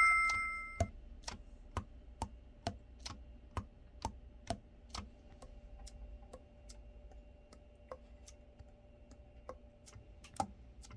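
A bright bell-like ding, then steady clock-like ticking at about two ticks a second that grows sparser after about five seconds.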